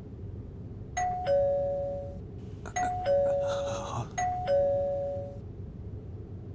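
Two-note ding-dong doorbell chime rung three times in quick succession, each a higher note falling to a lower one. A brief rushing noise sits between the second and third chimes.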